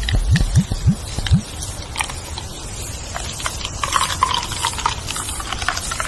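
Wind rustling through leaves, with scattered clicks and brief bird chirps. Low wind rumble buffets the microphone for the first second and a half.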